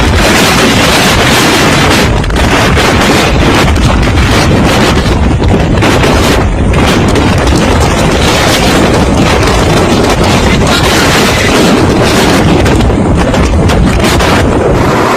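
Category 5 hurricane wind blowing loudly and without a break, buffeting the microphone.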